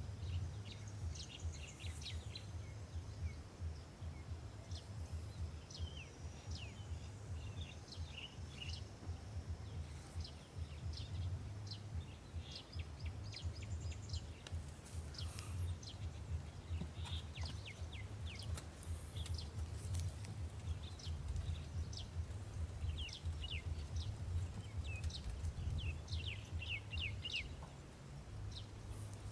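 Small birds chirping and calling in many short, quick notes over a steady low rumble.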